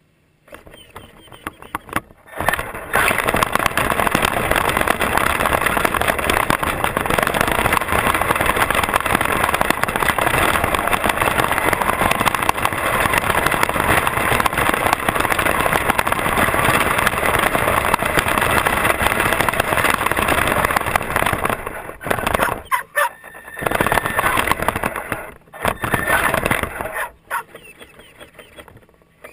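Traxxas radio-controlled truck driving over grass, heard from a camera mounted on the truck: a loud, steady rush of motor, drivetrain and rattling chassis that starts a couple of seconds in, then breaks into a few short bursts with pauses near the end.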